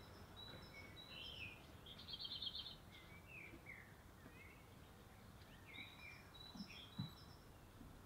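Faint wild songbirds singing: scattered short high chirps, with a quick trill about two seconds in and another run of chirps near the end. A couple of soft low knocks come near the end.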